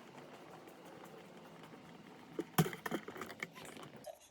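A quick run of clicks and knocks from objects being handled and set down, bunched about two and a half to three and a half seconds in, over a steady background hiss.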